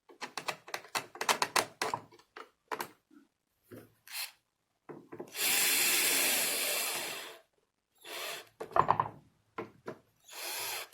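Power screwdriver driving a screw into a door lock, running for a couple of seconds about halfway through and in shorter runs near the end. Small clicks and knocks of handling the lock parts come in the first few seconds.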